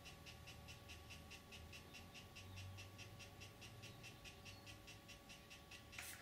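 Handheld 3D pen's filament feed motor running, a faint quick ticking about five times a second over a thin steady whine, as it pushes ABS filament into the seam to weld it. A brief rustle near the end.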